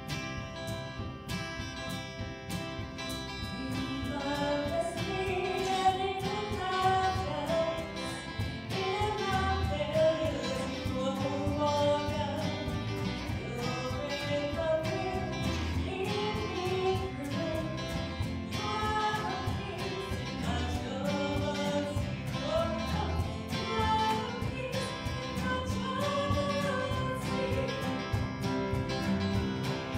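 Worship band playing a hymn or praise song on strummed acoustic guitars and grand piano, with voices starting to sing about four seconds in.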